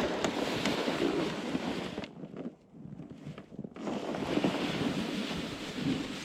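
Strong blizzard wind rushing in gusts, partly buffeting the microphone, with a brief lull about two seconds in before it picks up again.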